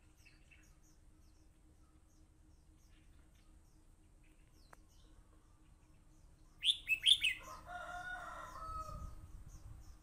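Red-whiskered bulbul singing: faint chirps, then three loud, sharp falling notes about two-thirds of the way in. A rooster crows right after, a lower, drawn-out call lasting about two seconds.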